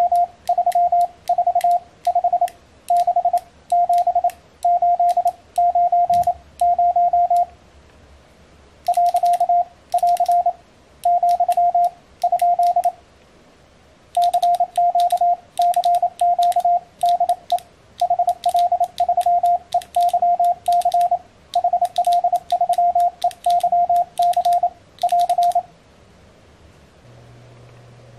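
Morse code sidetone, a single steady beep of about 700 Hz, keyed in quick dots and dashes in short groups with pauses between, sent on a homemade CW paddle key made from two microswitches; a faint click marks each element. The keying stops about three seconds before the end, leaving a faint low hum.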